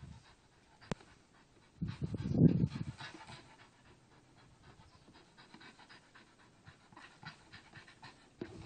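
Staffordshire Bull Terrier breathing hard while it hangs on a tire swing by its jaws, with a louder, low burst of sound about two seconds in that lasts about a second.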